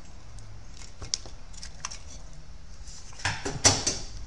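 Small tools and parts being handled on a repair bench: a couple of light clicks, then a short clatter of taps and clicks about three seconds in.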